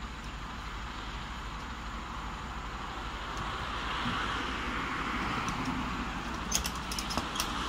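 Road traffic passing: a steady rush of tyres and engines that swells to its loudest about halfway through and stays up. A few sharp clicks near the end.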